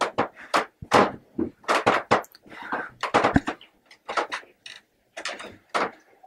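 An irregular run of short, sharp knocks and clicks, about two or three a second, with a brief breathy smear about three seconds in. It is presented as an EVP reply, heard by the uploader as the name "Adam".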